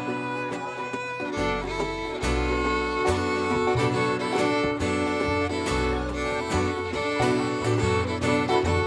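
Live bluegrass band playing an instrumental break, the fiddle carrying the lead over strummed acoustic guitar, banjo, mandolin and upright bass.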